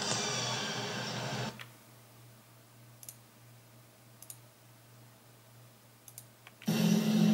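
A dense loud sound cuts off about a second and a half in, leaving a low steady hum with a few scattered sharp clicks. The loud sound comes back suddenly near the end.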